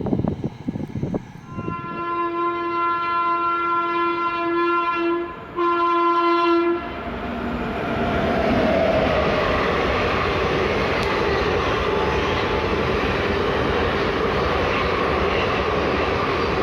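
Indian Railways train sounding its horn twice, a long blast and then a short one, after some gusty noise at first. The train then runs past at speed with a steady rumble and wheel clatter.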